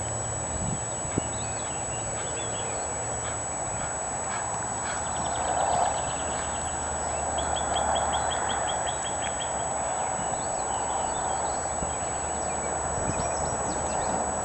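A horse's hooves on the soft sand footing of a riding arena as it is ridden around. The sound grows louder as the horse passes close by about halfway through.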